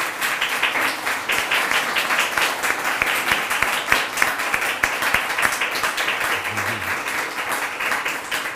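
A seated audience applauding, many hands clapping steadily.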